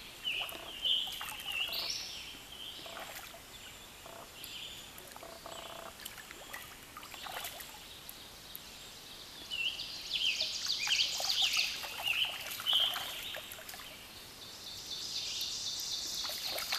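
Songbirds singing: bursts of high chirping phrases near the start and again about ten seconds in, then a buzzy high trill near the end, over the faint steady run of a shallow stream.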